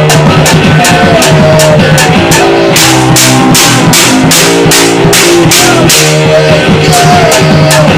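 Loud, distorted garage noise-rock recording: a drum kit pounding with frequent cymbal and snare hits over sustained distorted guitar chords, with a short bending lead line that comes back a few times.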